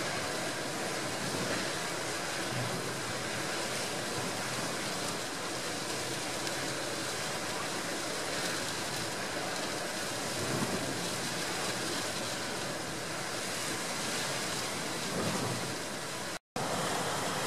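Heavy storm surf crashing and rushing, with strong gale wind blowing over the microphone; the sound cuts out for a moment near the end.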